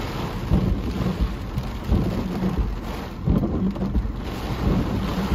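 Heavy thunderstorm rain heard from inside a car's cabin: rain drumming hard on the roof and windshield, over a steady low rumble with irregular dull thumps.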